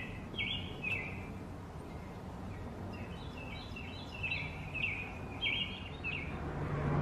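A bird chirping in the background: short, high, down-sweeping notes repeated in several quick runs, over a steady low hum.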